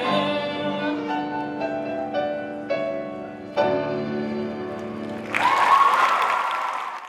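The song's closing chords ring out and are held. About five seconds in, audience applause and cheering burst in, then cut off abruptly.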